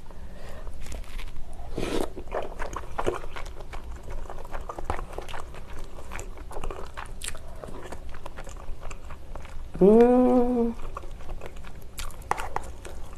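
Close-miked chewing of spicy tteokbokki (chewy rice cakes and fish cake in sauce), with many wet mouth clicks and smacks. About ten seconds in comes a short hummed 'mmm' that rises in pitch and then holds for about a second; it is the loudest sound here.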